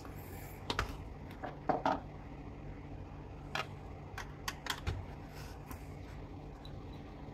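Irregular light clicks and knocks of plastic and metal as a Ricoh copier fuser unit is handled and turned over, mostly in the first five seconds.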